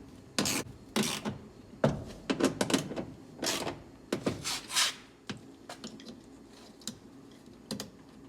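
Metal and plastic door parts being handled and fitted by hand: a quick run of clicks, rattles and short scrapes over the first five seconds, then a few isolated clicks.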